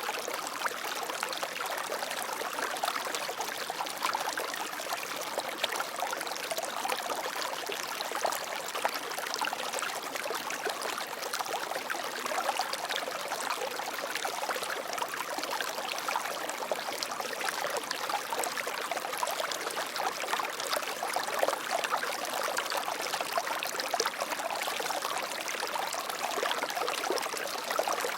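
Water flowing steadily over rocks, a continuous rushing trickle with many small splashes.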